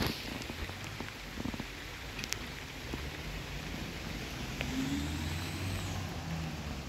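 A sharp knock of the phone being handled at the start, then light rain with a low vehicle engine rumble that builds from about three seconds in.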